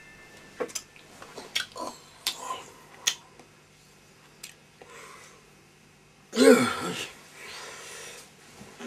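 Bedding rustling with small knocks as a man shifts under a blanket, then about six seconds in a single short, loud vocal grunt from him, close to the microphone.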